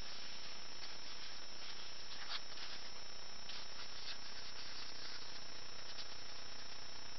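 Paintbrush scratching and brushing on sketchbook paper in a few short, soft strokes, over a steady hiss and a thin high whine.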